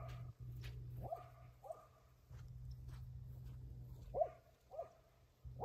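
A dog barking in short, high yips, about five times with pauses between, over a steady low rumble.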